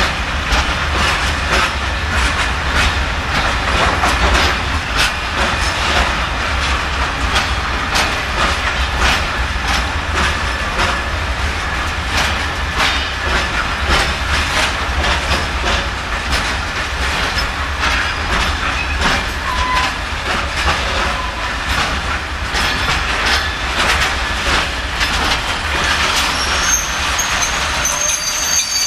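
Freight train of wagons hauled by a diesel locomotive rolling past: a steady clickety-clack of wheels over rail joints over a low engine rumble. High wheel squeal starts ringing out near the end.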